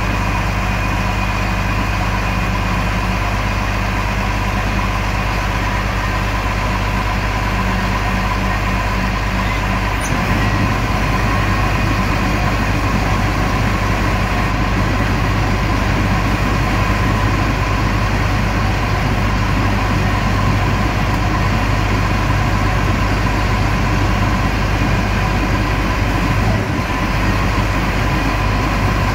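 Heavy truck's diesel engine idling steadily, with a steady whine above it. About ten seconds in, the engine note changes and gets slightly louder.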